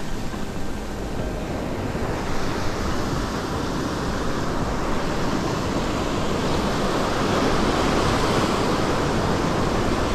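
Ocean surf breaking and washing up a sandy beach, a steady rush that swells louder over the second half.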